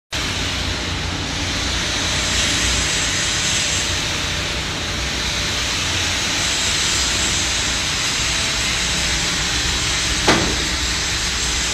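Steady hissing, rumbling noise of a welding shop floor, the kind made by ventilation and welding in the booths, with one brief sharper sound a little after ten seconds in.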